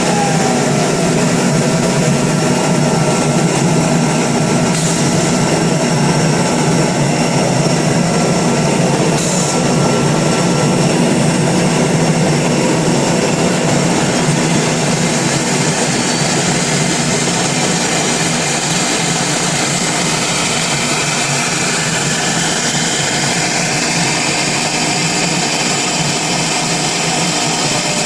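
CNC router spindle running and cutting into a composite panel: a loud, steady whine and cutting noise with no pauses.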